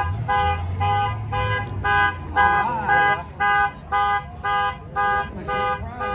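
Car alarm sounding through the car's horn: evenly pulsed horn blasts, about two a second, stopping near the end.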